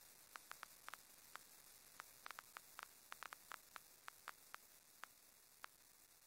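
Near silence: a faint static hiss with soft crackling clicks scattered at irregular intervals, a few each second.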